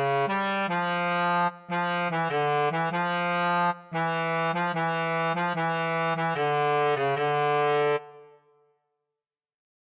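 Melodica playing a melody one sustained note at a time over a steady low note, with two short breaks in the line. The phrase ends about eight seconds in and dies away to silence.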